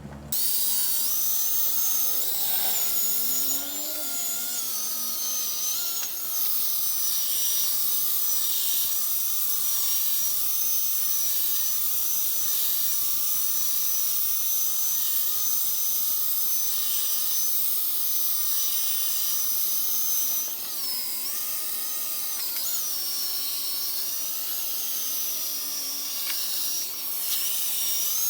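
Power drill spinning a black foam polishing pad with polish against a plastic headlight lens. A steady high motor whine starts suddenly near the beginning and dips in pitch briefly several times as the load on the pad changes.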